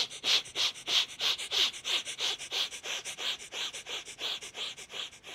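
A man doing breath of fire: rapid, shallow in-and-out breathing through the nose, short sharp hissing breaths at about three to four a second. This deliberate near-hyperventilation is a breathing technique for amping oneself up before a fight.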